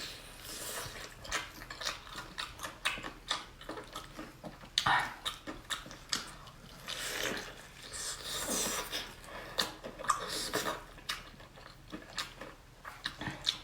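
A person biting and chewing fried chicken leg close to the microphone: many short, sharp crunching and smacking clicks at an uneven pace.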